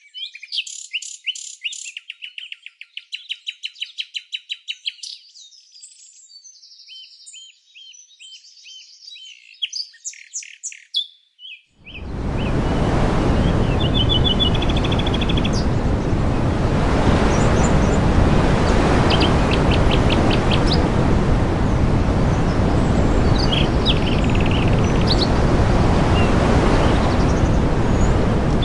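Songbirds singing for about the first twelve seconds: rapid trills and quick runs of repeated high notes. Then the sound switches abruptly to a loud, steady rushing noise, with a few faint bird chirps heard over it.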